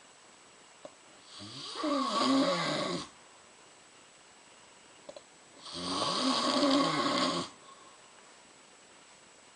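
A woman snoring in her sleep: two long snores, each lasting about one and a half to two seconds, roughly four seconds apart.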